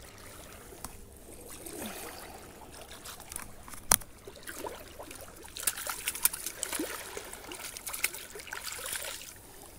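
Small splashes and trickling of shallow lake water at the shoreline as a released bass flaps in a few inches of water, with a run of quick splashes in the second half. A single sharp knock about four seconds in.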